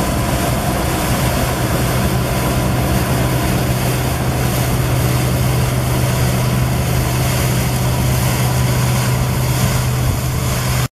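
Claas Dominator 96 combine harvester running steadily, a diesel hum under the clatter and rush of its machinery, cutting off abruptly near the end.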